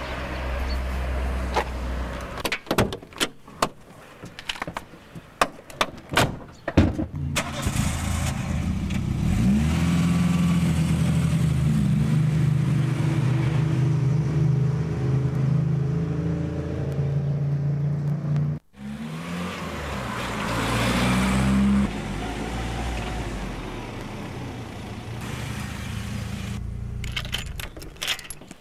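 A run of sharp clicks and knocks from a car door and its handling, then a car engine starts and runs, revving up as the car pulls away. The engine sound breaks off suddenly and comes back, rising again before settling into steady running.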